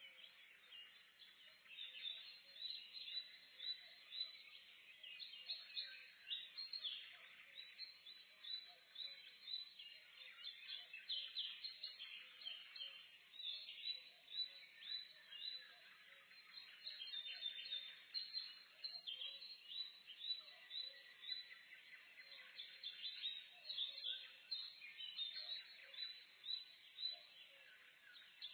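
Morning forest bird chorus: many small songbirds chirping and singing at once, a dense, unbroken mix of quick high chirps and trills.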